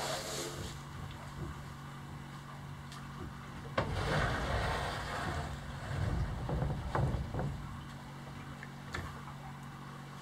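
Wooden boards being dropped and slid onto a stack of lumber on a boat deck: a sharp knock and a scraping rush a few seconds in, then several dull thuds and a later knock, over a steady low hum.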